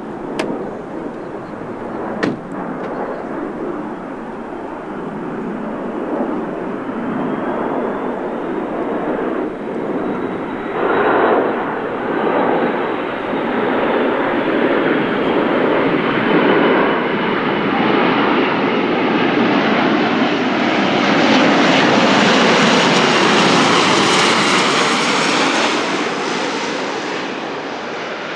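Airbus A400M's four TP400 turboprops with eight-bladed propellers passing low overhead in a flying display: a steady propeller and engine drone that builds, is loudest a few seconds before the end, then eases as the aircraft moves away.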